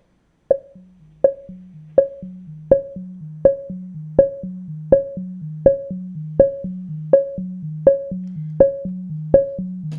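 Eurorack modular synth: the XPO oscillator sequenced by René and struck through an Optomix low-pass gate, giving a steady run of plucked, ringing notes about every three-quarters of a second. Each strike's ringing runs past its sequencer step, so the next steps' different, lower notes are heard ringing out under it.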